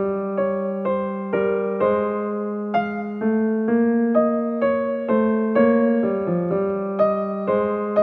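Background music: a gentle piano or electric piano melody of struck, decaying notes, about two a second, over a held low note.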